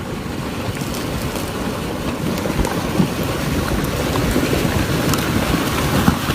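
Creek in flash flood, fast water rushing and churning as it carries wood debris: a loud, dense, steady noise that slowly builds, with a couple of sharp knocks, about three and six seconds in.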